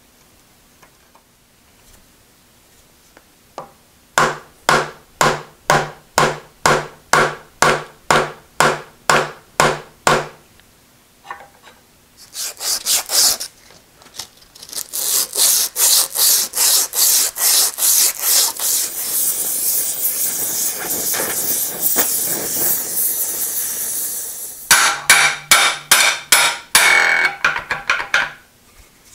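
A strip of abrasive cloth is pulled back and forth around a steel shaft, shoe-shine fashion, scouring the shaft. The rubbing comes in three runs of even strokes: about two strokes a second at first, then a longer, faster run, then a short run near the end.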